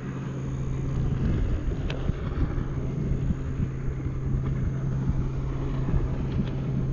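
A small motor hums steadily as it drives the kayak along, with wind rumbling on the microphone.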